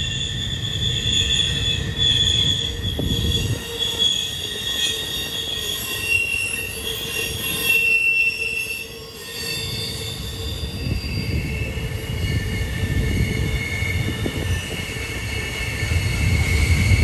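Intermodal freight train's steel wheels squealing against the rails as the cars roll through a tight curve. Several steady high squeal tones come and go and shift in pitch over a low rumble of wheels on track, easing briefly about halfway through.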